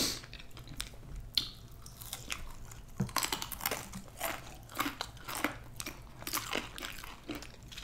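Close-miked chewing and biting of food, with irregular crunches and small crackling clicks.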